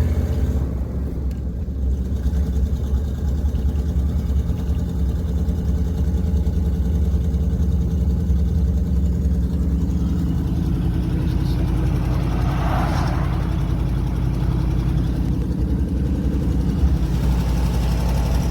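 A vehicle engine running steadily, a low even hum, with a short swell of higher-pitched sound about two-thirds of the way through.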